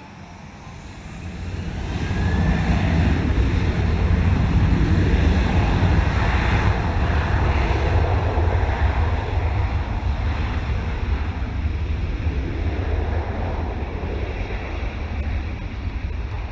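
Boeing 737's CFM56-7B turbofan engines spooling up to takeoff thrust, a short rising whine about two seconds in, then a loud steady jet roar with deep rumble that slowly fades as the jet accelerates away down the runway.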